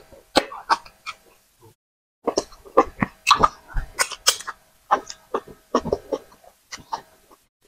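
Close-miked wet mouth noises of eating fufu dipped in soup: quick smacks and slurps while chewing and sucking sauce off the fingers, briefly pausing about a second in.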